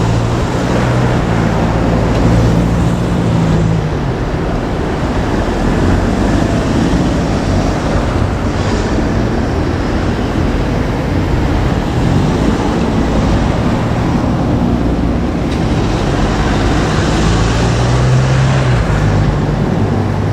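Steady road-traffic noise: motor vehicles running past, their engine hum holding, dipping and rising again a few times.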